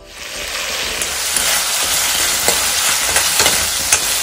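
Pieces of meat sizzling in hot oil in a metal pan, stirred with a spatula that clicks and scrapes against the pan now and then. The sizzling starts at the very beginning and swells over the first second.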